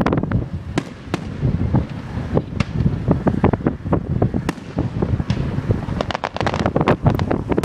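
Fireworks going off in a rapid, irregular string of sharp bangs and crackles over a steady low rumble.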